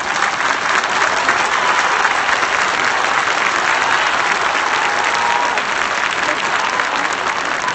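A large stadium crowd applauding. It swells over the first couple of seconds, then holds steady and eases slightly near the end.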